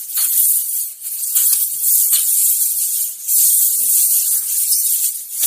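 Loud, harsh high-pitched hiss coming in choppy stretches, dipping briefly about one, two and three seconds in.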